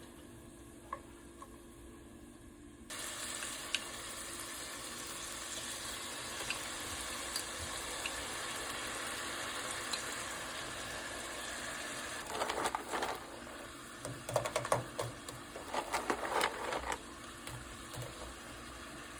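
Food frying in a pan: a steady sizzle that starts suddenly about three seconds in, with louder irregular crackling and clatter toward the end before it dies down.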